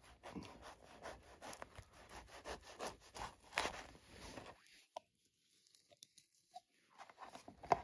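A quick, irregular run of scraping and crunching clicks for about four and a half seconds, then a near-silent lull with a few faint ticks, and scraping again near the end.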